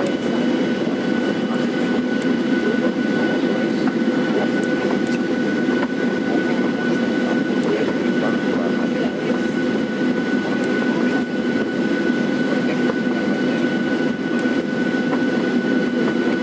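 Cabin noise inside a taxiing Boeing 737-700, its CFM56-7B jet engines running at taxi power: a steady whine over a low rumble.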